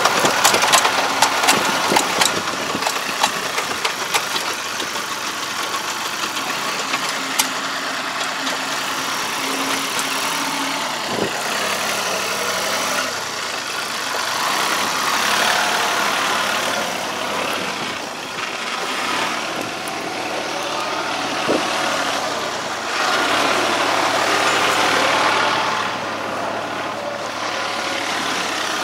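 Yanmar crawler tractor's diesel engine running steadily as the tractor drives across the field. There is a quick run of clicking in the first couple of seconds, and the engine grows louder twice as the tractor comes nearer.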